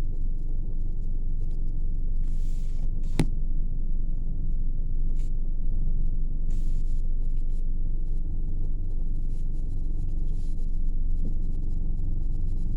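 A steady low rumble with a sharp click about three seconds in.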